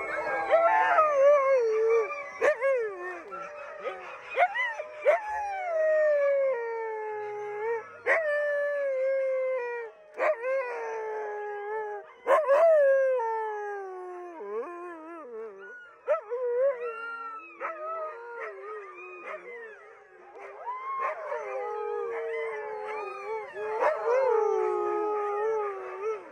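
A pack of dogs howling together: many overlapping howls that slide down in pitch, broken every few seconds by sharp yips.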